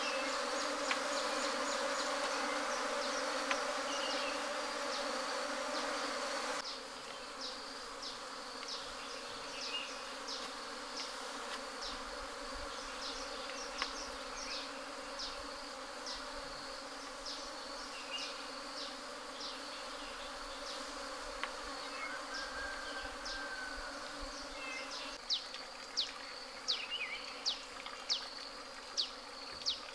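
A swarm of honey bees buzzing steadily and densely; about six and a half seconds in the buzzing drops to a quieter hum. Over the rest, a steady high drone runs on with many short, falling high-pitched chirps, coming louder and faster near the end.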